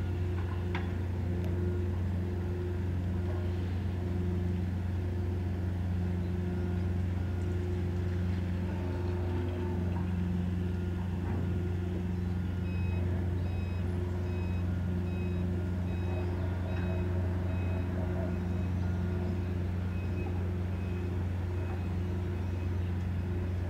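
Moored ferry's shipboard machinery running with a steady low hum, with water pouring from the hull outlet into the harbour. From about halfway, a reversing alarm beeps at a steady rate until near the end.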